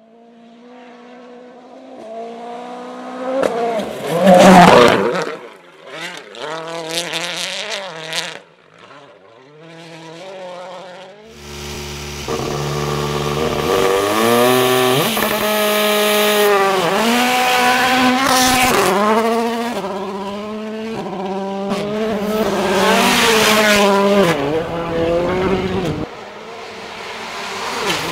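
Rally cars at full throttle on a gravel stage. One approaches and passes about four to five seconds in, the loudest moment, its engine note rising and dropping through gear changes as it goes away. From about eleven seconds another car is heard running hard, revving up and shifting gears repeatedly.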